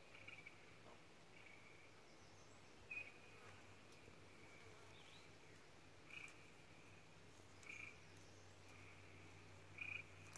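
Faint outdoor ambience with short, high calls repeating every one to three seconds, from a small animal.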